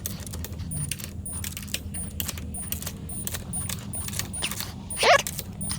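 Metallic clicking and clinking of a wrench and bolts as the ring gear bolts are torqued down on a differential carrier: a run of sharp, irregular clicks, with a short wavering squeak about five seconds in.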